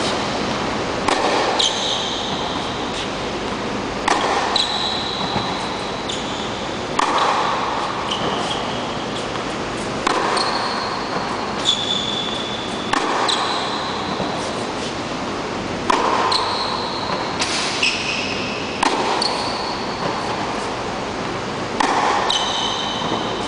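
Tennis balls struck with a racket in a rally, a sharp echoing hit about every three seconds with fainter bounces between, in the reverberant space of an indoor tennis hall. Short high squeaks of tennis shoes on the court follow several of the hits.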